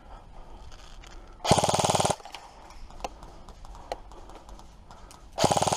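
Airsoft gun firing two short full-auto bursts of about half a second each, one about a second and a half in and one near the end, with a few faint ticks between them.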